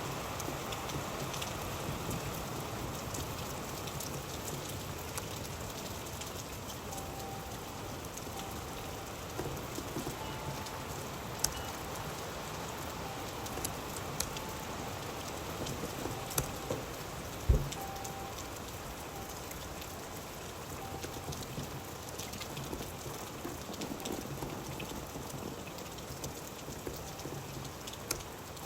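Steady rain falling on a surface, with scattered sharper drop hits; the loudest hit comes just past halfway.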